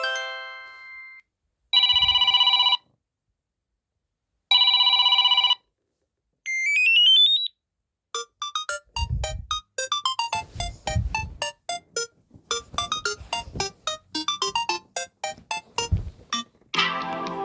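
Samsung Galaxy A36 5G preset ringtones and notification sounds played one after another: a chime fading out, two identical buzzy electronic ring bursts, a quick rising arpeggio, then a fast synth melody over a low beat, with another tune starting near the end.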